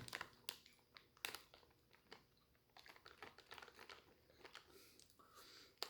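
Faint, scattered crinkling and small clicks from a plastic candy wrapper being handled, with a few sharper clicks in the first two seconds.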